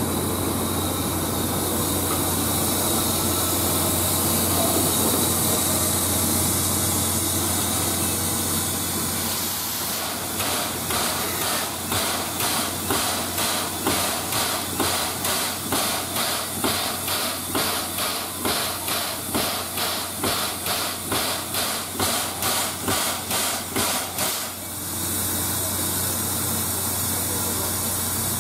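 Steam locomotive C56 160 letting off steam with a steady hiss. About ten seconds in, a regular beat of steam pulses, about two a second, starts over the hiss and runs for some fourteen seconds before the hiss alone returns.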